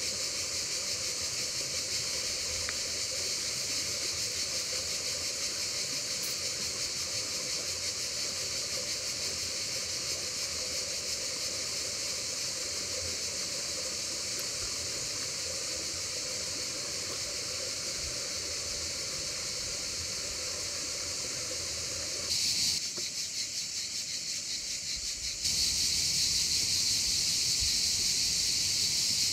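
Steady high hiss of summer insects over a river running, changing abruptly twice near the end and louder after the second change.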